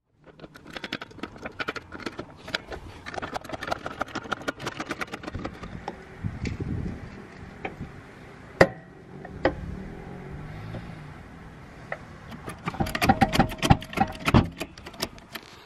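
Metal clicking and clattering from jacking up a car with a steel trolley jack and axle stands. There is one sharp clack about halfway through and a dense burst of rattling near the end.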